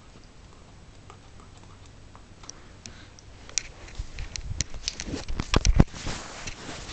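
Handling noise from a handheld video camera: scattered small clicks at first, then a busy run of clicks, rubbing and low thumps that is loudest about five to six seconds in.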